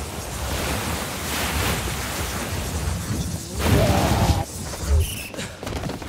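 Film sound effects of a churning mass of rushing water, a steady surging hiss that swells into louder surges with low booms about four and five seconds in.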